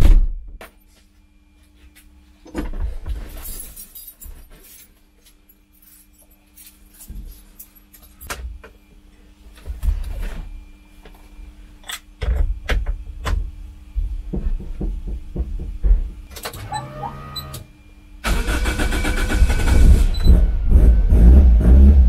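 A thump, then scattered clicks and knocks inside a Toyota AE86's cabin. About three-quarters of the way through, the engine is cranked and starts, then runs loud and keeps building to the end.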